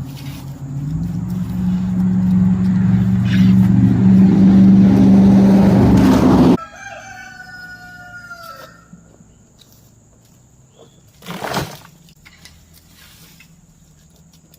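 A loud steady low hum with a rising rushing noise, cut off abruptly about six and a half seconds in. Then a rooster crows once, and a single thump comes near the end.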